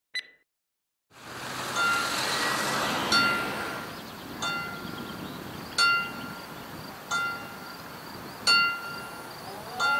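Mechanical level-crossing bell (Läutwerk) striking single strokes, six times about every 1.3 seconds, each ringing out, over a rushing background noise that rises about a second in. The bell warns that the barriers are closing for an approaching train.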